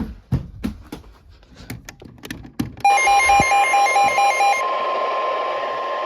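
A few sharp clicks, then about three seconds in the NOAA Weather Radio warning alarm tone starts, a loud steady tone. For its first couple of seconds it is joined by a weather radio receiver's fast beeping alert, about five beeps a second. This signals the tornado warning that follows.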